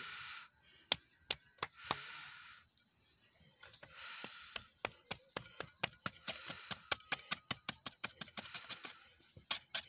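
Sharp taps of a scraper's metal blade knocking and scraping the top of an interlocking soil brick. A few scattered taps come first, then from about four seconds in a quick run of several taps a second.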